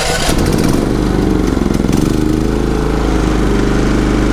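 Champion 3400 dual-fuel inverter generator's single-cylinder engine running on propane, just started with the choke on. Its speed shifts for the first couple of seconds, then settles to a steady run.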